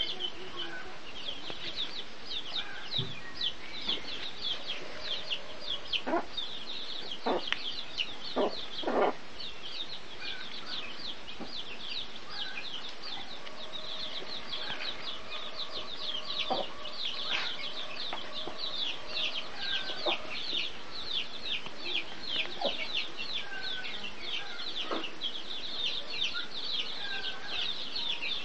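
A group of birds peeping constantly: many short, high chirps, each falling in pitch, several a second. A few sharp knocks come between about six and nine seconds in.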